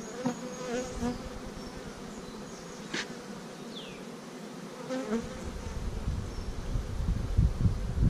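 Honeybees buzzing around an open hive, a steady hum. A single sharp click comes about three seconds in, and a low rumble builds over the last few seconds.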